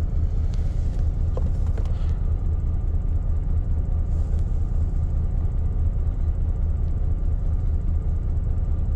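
2003 Chevrolet Silverado 2500's 6.0-litre V8 idling rough, a steady low rumble: the engine is misfiring, with a random-misfire (P0300) code that new plugs, wires and coils have not cured.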